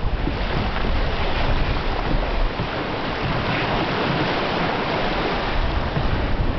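Sea water rushing and splashing past a sailing yacht's hull as it moves under sail, with wind buffeting the microphone; the low rumble of the wind eases a little midway.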